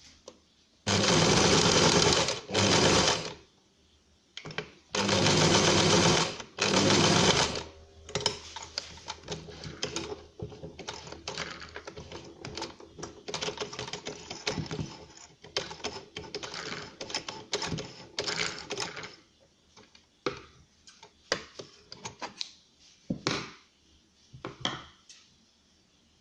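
Electric sewing machine stitching felt in two runs of a couple of seconds each, followed by a longer stretch of light clicks and taps that thin out toward the end.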